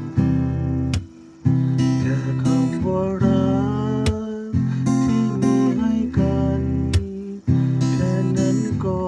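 Acoustic guitar strummed in chords, with sharp strokes and a short pause about a second in, and a man's voice singing over it in places.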